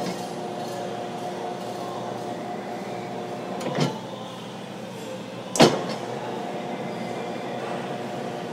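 A 90-quart gear-driven commercial planetary mixer with a 5 hp motor clicks on and runs with a steady hum from its motor and gearbox. Its speed-change lever is shifted between gears, giving a knock about four seconds in and a louder clunk about five and a half seconds in.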